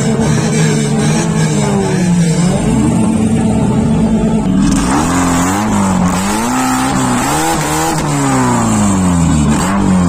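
Car engine being revved. For the first few seconds it runs with a slowly wavering pitch; from about halfway the pitch rises and falls several times in quick succession as the throttle is blipped.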